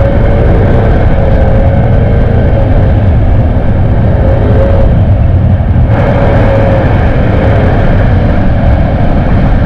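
Wind rushing over a riding microphone with a Yamaha NMAX 155 scooter's engine running underneath as it travels along the road. The sound is a loud, steady rumble with a faint wavering engine tone, and the rush grows a little brighter about six seconds in.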